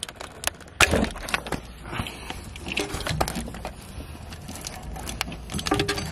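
Scattered clicks and knocks of pliers gripping and working a spark plug wire boot loose from its spark plug, the sharpest knock a little under a second in.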